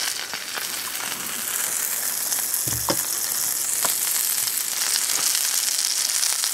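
Hamburger patty sizzling in hot grease in a cast-iron skillet, a steady hiss with scattered sharp crackles. A single low thump sounds near the middle.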